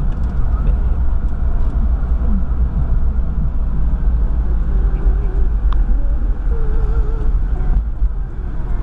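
Steady engine and road rumble heard from inside the cabin of a moving Nissan Vanette van.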